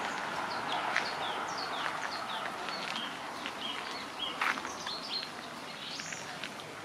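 Songbirds singing: many short, high chirps that fall in pitch, overlapping one another, over a steady outdoor hiss. A single sharp knock about four and a half seconds in.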